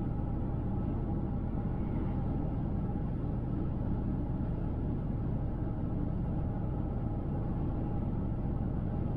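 A car driving on a highway: a steady low rumble of tyre and road noise with the engine hum.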